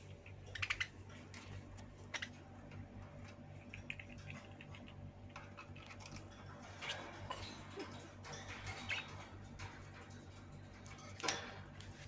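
Budgerigars' claws and beaks clicking and scraping on the wire bars of their cage: irregular light taps, with a louder rattle near the end, over a steady low hum.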